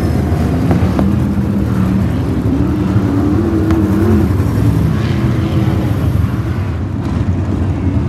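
305 sprint cars' V8 engines running at race speed around a dirt oval, one car passing close by near the start. The engine pitch rises and falls as the cars go through the turns and down the straights.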